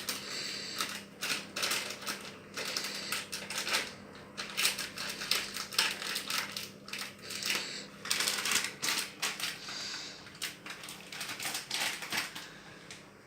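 Quick irregular clicks and rustling of things being handled, with a faint steady hum underneath.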